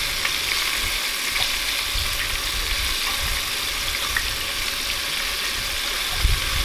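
Batter-coated pike fillets shallow-frying in hot oil in a stainless steel skillet: a steady sizzle, with a few light clicks of metal tongs as the fillets are turned.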